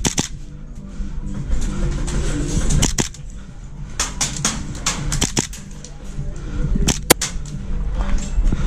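Airsoft guns firing: scattered sharp snaps, several in quick succession about four to five seconds in and one loudest crack about seven seconds in, over background music with a steady low beat.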